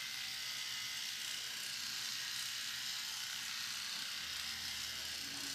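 Battery-powered Braun facial cleansing brush running with a steady whir as its vibrating bristle head is moved over the face.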